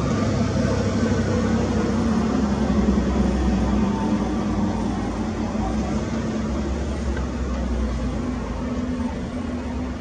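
Steady low rumble of distant city traffic, with a faint engine hum held under it.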